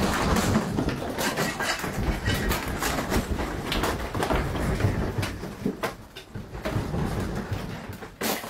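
Shelves and the objects on them rattling and clattering as a room shakes in a strong earthquake. Many irregular knocks ride over a steady low rumble.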